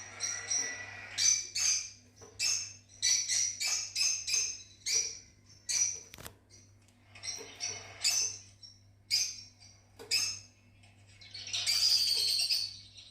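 Fischer's lovebirds chirping: a string of short, shrill calls at irregular intervals, running into a denser burst of chatter near the end.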